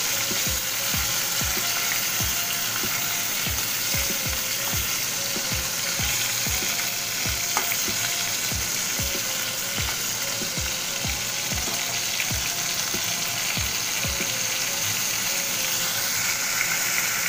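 Stuffed pointed gourds (potol) shallow-frying in hot mustard oil in a kadai, a steady sizzle.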